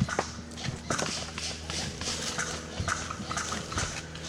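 Irregular sharp clicks and knocks, several a second, over a faint steady low hum.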